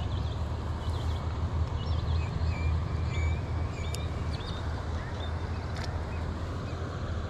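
Steady low rumble of outdoor background noise, with many short birdlike chirps and a few faint clicks over it.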